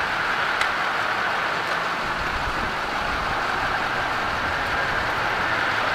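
Steady outdoor background hum and hiss with a constant mid-pitched whine, and a faint click about half a second in.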